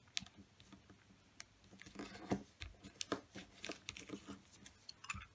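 Origami paper being folded and creased by hand: soft crinkles, rubs and light taps as fingers press the folded edges flat, a run of short sounds that grows busier after the first couple of seconds.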